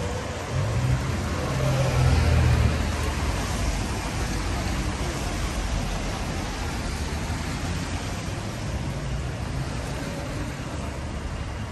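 Road traffic on a wet street: a steady hiss of tyres on wet tarmac with engines passing. A vehicle going by gives a louder low rumble about two seconds in.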